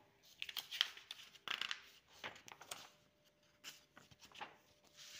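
Paper pages of a printed booklet rustling and crinkling as a page is handled and turned, in several short irregular bursts, with a softer swish near the end.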